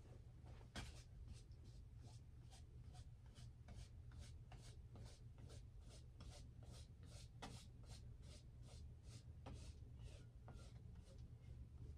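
Flat paintbrush stroking paint across a stretched canvas: faint, short brushing strokes, about two or three a second, over a low steady hum.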